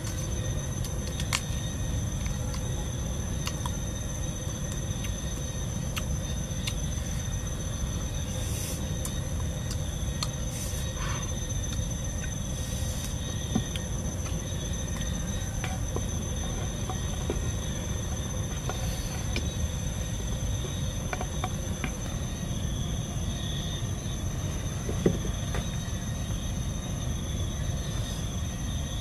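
Steady insect drone, one unbroken high tone, over a low steady rumble, with scattered light clicks and rustles of leaves being handled.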